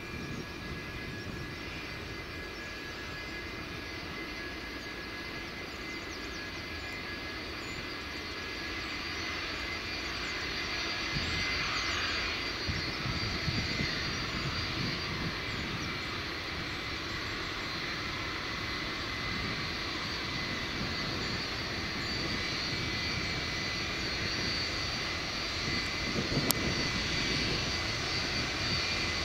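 Boeing 757's twin jet engines at taxi power as the airliner taxies and turns past: a steady whine of several high tones over a low rumble, growing louder towards the middle as the engines swing round to face the microphone. A single sharp click comes near the end.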